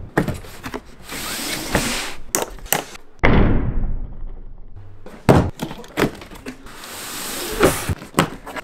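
A run of sharp clicks, knocks and thunks, with hiss that swells up twice and a sudden loud hit about three seconds in that dies away over a second or so.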